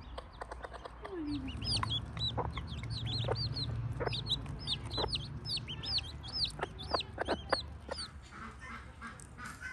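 Chickens calling around the yard: a quick run of short, high chirps for about six seconds, with a few low clucks and sharp clicks among them.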